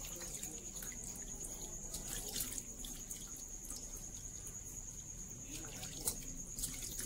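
Water sloshing, splashing and dripping as a peeled pineapple is rubbed and rinsed by hand in a metal bowl of water, with a sharper splash about six seconds in. A steady high-pitched whine runs behind it.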